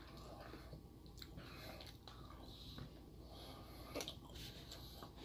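A person chewing a mouthful of soft frosted cake roll: faint wet mouth sounds with a few small clicks.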